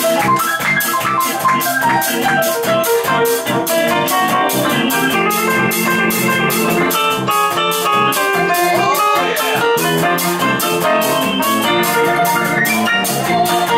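Live jazz band playing an instrumental passage of a New Orleans-style tune: clarinet, piano and electric guitar over a drum kit keeping a steady cymbal beat.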